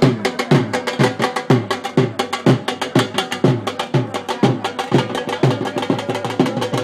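Drum beating a fast, steady rhythm: deep strokes about twice a second that drop in pitch, with sharp stick clicks packed in between.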